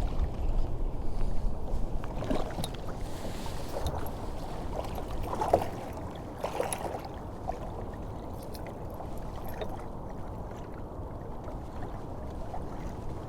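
Steady low wind and water noise around a fishing kayak, with a few light knocks and clicks near the middle.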